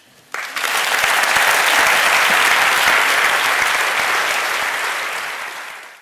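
Lecture audience applauding, starting about half a second in and holding steady, then cut off suddenly at the end.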